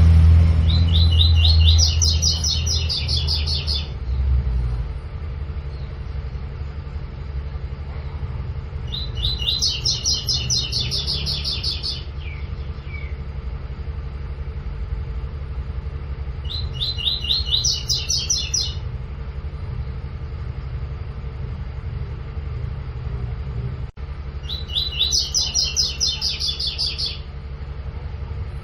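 Double-collared seedeater (coleiro) singing its 'tui-tui' song: four phrases of rapid, high repeated notes, each two to three seconds long and several seconds apart. A steady low rumble runs underneath and is loudest during the first few seconds.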